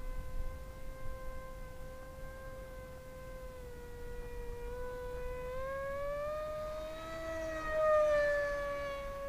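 Electric motor and propeller of an AtomRC Bat delta-wing RC plane whining in flight, a steady tone that rises in pitch and grows louder about two thirds of the way in, loudest near the end, then eases slightly down in pitch.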